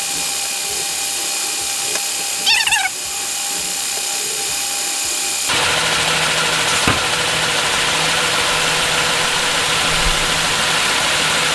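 Motorized Lego gantry crane with pneumatic grabber running through its container-moving cycle, played back at five times speed, giving a steady high hissing whir. It grows louder and fuller, with a low steady hum added, about five and a half seconds in.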